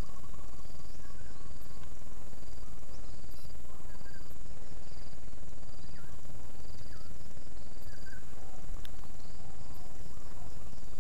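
Rural outdoor ambience: a steady high insect drone with a short pulsing chirp repeating at an even pace, and a few brief bird chirps, over a constant low rumble on the microphone.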